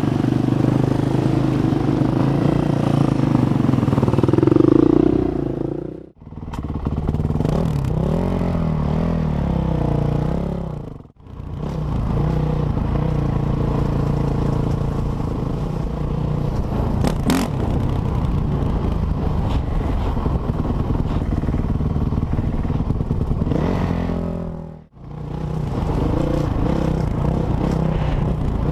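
Motorcycle engine running while riding, its pitch rising and falling with the throttle. The sound drops out suddenly and briefly three times.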